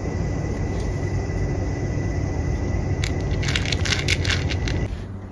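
A black kitten crunching dry kibble from a plastic cup: a quick run of crisp crunches from about three seconds in, over a steady low rumble.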